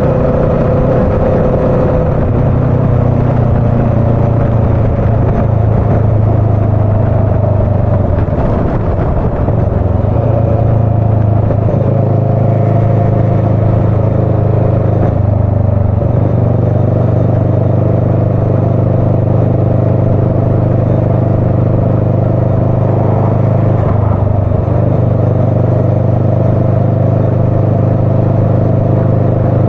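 Motorcycle engine running steadily under way, heard from the handlebars. The engine note dips and steps in pitch several times as the bike slows and picks up speed again.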